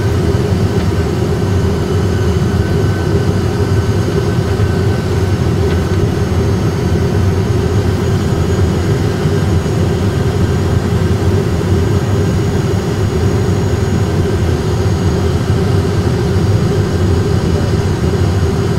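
Airbus A320 flight-deck noise on final approach with the landing gear down and flaps at full: a steady rumble of airflow and jet engines at approach thrust, with a faint high steady tone above it.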